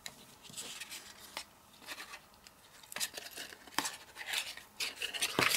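Double-sided adhesive tape handled on cardstock: tape pulled from its roll and pressed onto a paper flap, with soft paper rustling and a few sharp clicks.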